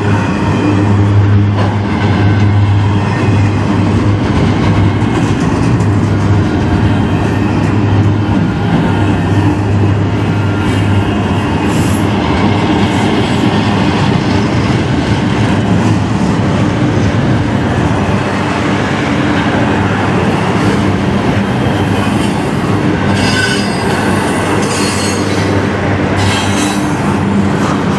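Double-stack intermodal well cars rolling past: a steady, loud rumble and clatter of steel wheels on the rails, with some wheel squeal.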